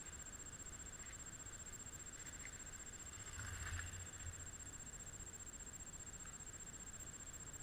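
Faint, steady outdoor hiss with a constant high whine, broken by a brief soft rustle about three and a half seconds in.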